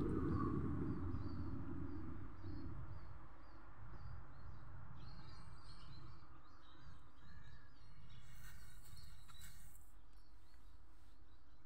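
Small birds chirping outdoors: first a short chirp repeated about twice a second, then busier, more varied chirping. Under it runs a steady low rumble of outdoor noise, with a brief high hiss about two-thirds of the way through.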